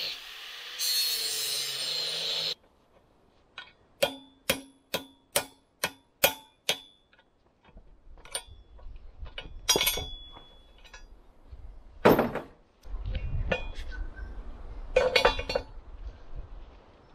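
Angle grinder cutting into a steel roller chain link, stopping about two and a half seconds in, to remove a link whose roller is shattered. Then about seven sharp ringing metal knocks, roughly two a second, followed by scattered clinks and rattles of the chain links being handled.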